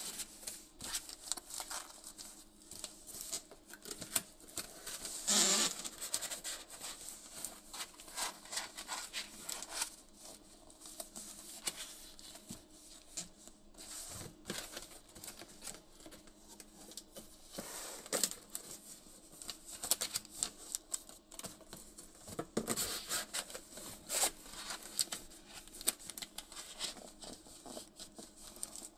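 Stiff cardboard being handled and folded by hand as a storage box is assembled: irregular taps, scrapes and rubbing of panels sliding and being pressed into place, with a louder scrape about five seconds in and a few more loud ones near the end.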